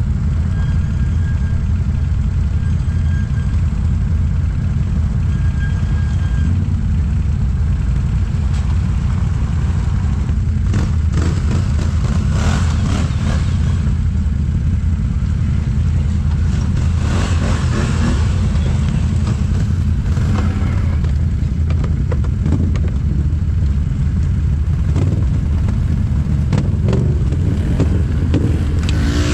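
Can-Am ATV engines: one idles steadily close by, while others rev up several times as they crawl over rocks and mud, with some clattering.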